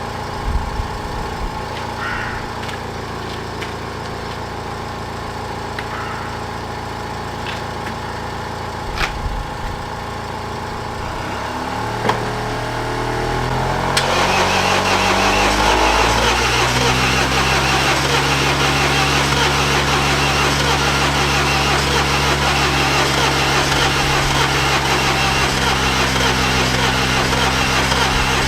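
Car engine idling, then revved up about twelve seconds in and held at a higher, steady speed. A few faint knocks come in the first half.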